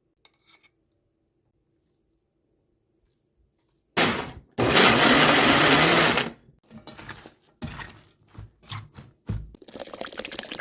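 An electric blender runs at high speed for about two seconds, starting about four seconds in, then stops abruptly. A few knocks and clatters follow, and near the end there is a pouring, splashing liquid sound.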